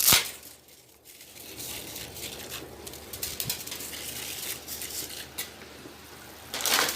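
Dry spaghetti snapped by hand with a sharp crack, followed by quieter crackling and rustling as the broken pieces are handled and dropped into a pot of boiling water.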